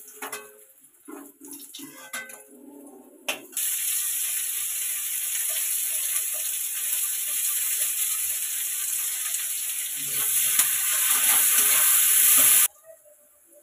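Sliced red onions hitting hot oil in a kadai: a sudden loud sizzle a few seconds in, hissing steadily and growing louder as they are stirred with a spatula, then cutting off abruptly shortly before the end.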